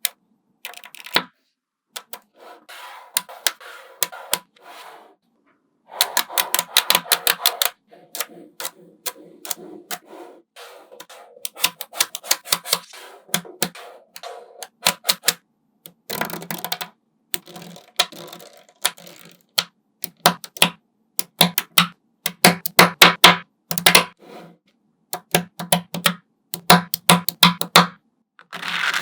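Small magnetic balls clicking and snapping onto one another as they are placed to build a structure: sharp clicks in quick runs, with short pauses between runs.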